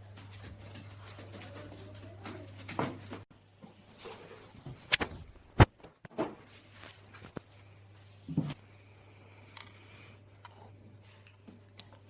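A few scattered knocks and clicks, one sharp click loudest about halfway through, over a low steady hum.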